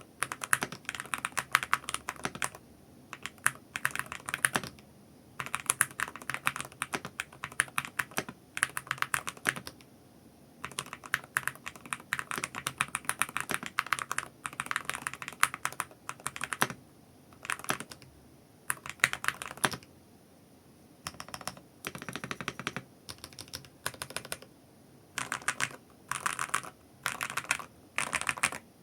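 Typing on a Hall-effect keyboard fitted with lubed Gateron Jade Ultra magnetic switches. The keystrokes come as rapid clatters in short bursts, with brief pauses between them.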